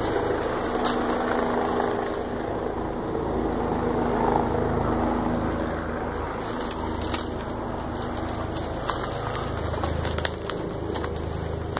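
Helicopter droning steadily, with scattered sharp crackles and snaps over it.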